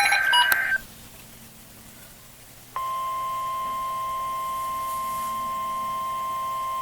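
NOAA Weather Radio alert signalling. The last of an EAS header's screechy SAME data bursts ends within the first second, followed by a short stretch of faint static hum. Then the steady single-pitch 1050 Hz warning alarm tone starts nearly three seconds in and holds, announcing a new warning.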